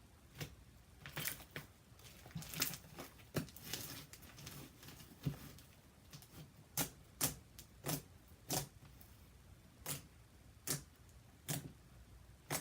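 Slime being stretched and squeezed by hand, with air pockets in it popping as a run of about twenty sharp, irregular clicks and pops.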